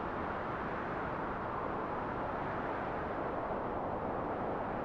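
Steady, even rushing noise with a low rumble and no distinct tones or beats.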